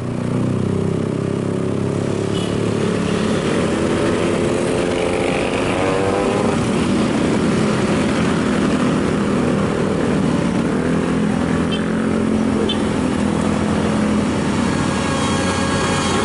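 Heavy diesel engine running steadily under load, with a brief rise in pitch about six seconds in.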